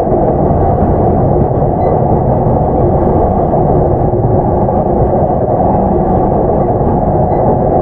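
Running noise heard inside an E233-7000 series EMU motor car (MoHa E233-7407) under way: a steady, heavy rumble of wheels on rail with no break or change.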